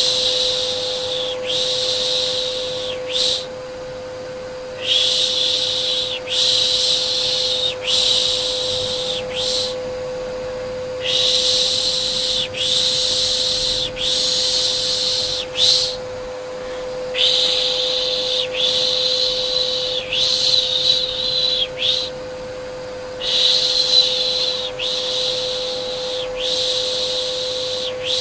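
Repeated soothing shushes ('shhh') for settling a baby, each lasting one to two seconds and fading at its end, mostly in runs of two or three with short pauses between, over a steady hum.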